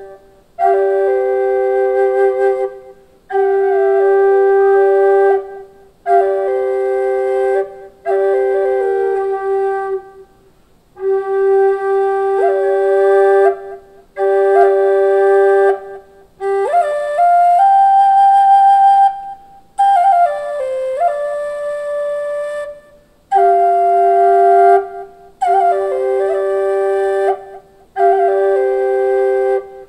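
Native American-style drone flute in the key of G, made of sapele and hard maple, played in short phrases with brief breath pauses between them. A steady low drone note is held beneath a melody played on the second chamber. About halfway through, the drone drops out for several seconds while the melody rises to a high, wavering note, then the drone comes back in.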